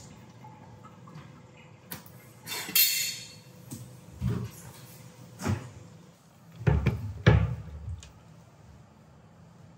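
Household knocks and bangs, typical of cupboard doors and things being moved while tidying up: about six separate knocks, a short hissing clatter about three seconds in, and two heavy thumps about seven seconds in.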